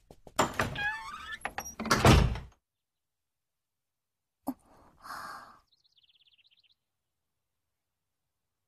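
A wooden door creaking on its hinges and shutting with a heavy thud about two seconds in. A few seconds later comes a soft brief sound and a faint, quick twitter.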